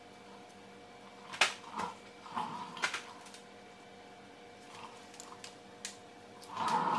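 Hand work on a rear brake caliper: sharp metal clicks and knocks with rubbing and scraping as the caliper is handled and seated over the rotor. The loudest click comes about a second and a half in, another near three seconds, and a longer scraping handling noise near the end, over a faint steady hum.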